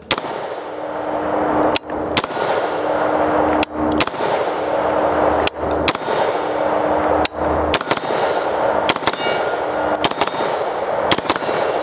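AR-15 in 5.56 fired in quick double taps, about six pairs of sharp shots, with a steady ringing tone hanging on between them.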